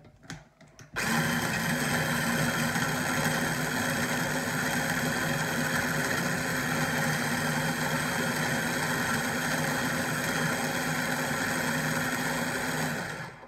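A very small electric food processor switches on about a second in and runs steadily for about twelve seconds, chopping red onion with no water added, then winds down near the end. Its motor is sluggish: it chops the onion but does not grind it fine.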